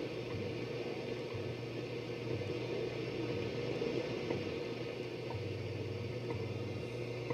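Shortwave static and hiss from a vintage RCA AR-88 receiver's speaker, with a low hum that drops in and out several times.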